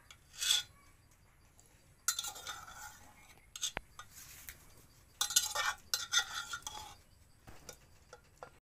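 Metal spoon scraping and clinking inside a pressure cooker as boiled pork pieces are scooped out, in several short bursts of clatter with one sharp click in the middle.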